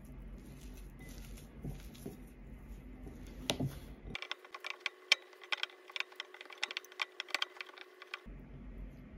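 Fingers rubbing and squeezing damp shiratamako (glutinous rice flour) crumbs in a glass bowl as it is kneaded into dough: soft rustling at first, then from about four seconds in a dense run of crisp crackles, over a faint steady hum.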